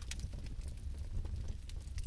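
Bio-fireplace fire burning: a steady low rumble with scattered small crackles and pops.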